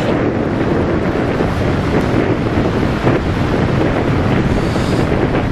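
Strong wind blowing across the microphone, a loud, steady rush heaviest in the low end.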